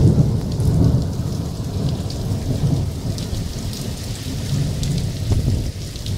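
Thunderstorm downpour: heavy rain and hail pelting down over a deep, continuous rumble.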